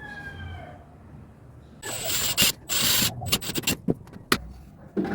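Two scraping strokes on wood, each about half a second long, followed by a quick run of sharp clicks and knocks.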